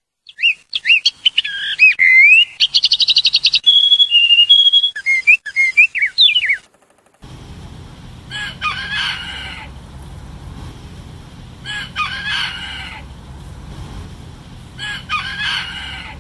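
A songbird sings a varied run of chirps, a fast trill and whistled notes. After a short gap a rooster crows three times, about three seconds apart, over a low steady background.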